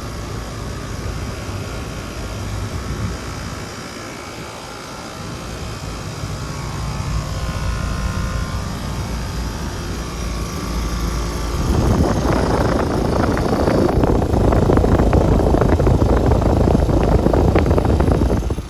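2020 5-ton Trane XR14 outdoor condensing unit starting up and running with a steady low hum. About twelve seconds in, a much louder, choppy rush of air sets in and holds.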